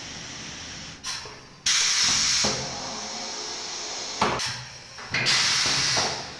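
Compressed air hissing from a pneumatic screen-printing machine's air cylinders and valves: a steady hiss with two loud bursts of exhausting air, each coming shortly after a click.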